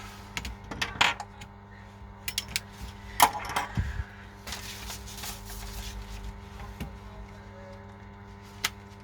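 Small tools and phone parts clicking and tapping on a repair bench during an iPhone screen replacement, with a brief rustle about halfway through, over a steady electrical hum.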